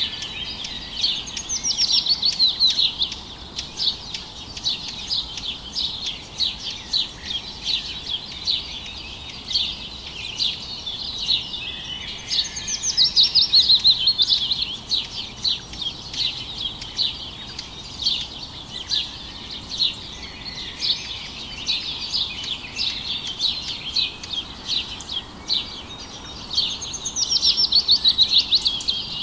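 Birdsong: many quick chirps going on continuously, with a louder rapid trill three times, about a second in, about halfway, and near the end.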